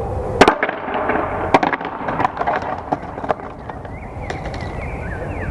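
Skateboard deck clacks and snaps: a run of sharp cracks over the first three and a half seconds, the loudest about half a second in, then wheels rolling more quietly.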